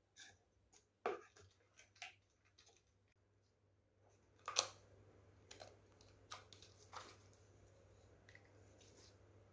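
Slime being handled, with faint, irregular sticky clicks and crackles. The loudest come about a second in and again about four and a half seconds in.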